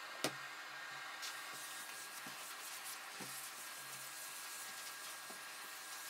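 Canister vacuum cleaner running steadily, its hose being used on sofa upholstery, with a sharp click just after the start and a few soft taps.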